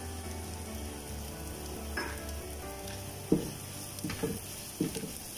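Slotted spatula stirring and scraping scrambled-egg masala around a nonstick frying pan, with a light sizzle. In the second half the spatula knocks against the pan several times.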